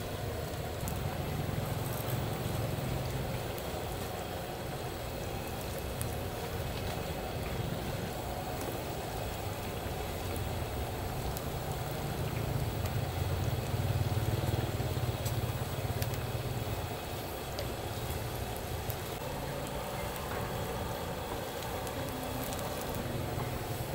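Belachan chicken deep-frying in hot oil: a steady sizzle and crackle over a low hum.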